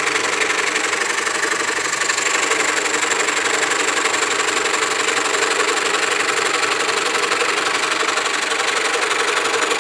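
DeWalt scroll saw running steadily, its reciprocating blade cutting through a stack of wood with a fast, even chatter.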